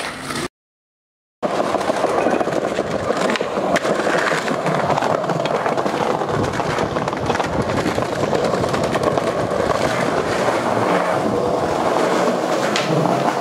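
Skateboard wheels rolling over stone paving slabs, a continuous rumble with scattered clicks. The sound drops out completely for about a second just after the start.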